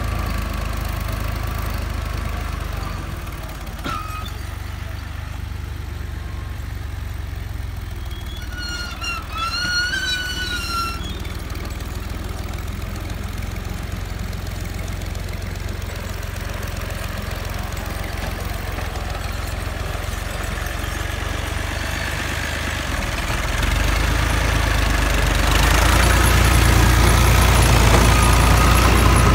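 Ghazi 480 tractor's diesel engine running steadily under load while its PTO-driven rotavator churns the soil. The sound grows louder near the end.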